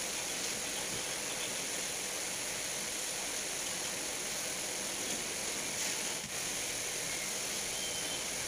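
Steady hiss of background noise, even and unbroken, with no distinct event.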